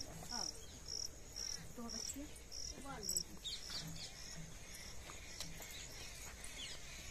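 Insect chirping in a steady rhythm, about two short high chirps a second, stopping about four and a half seconds in.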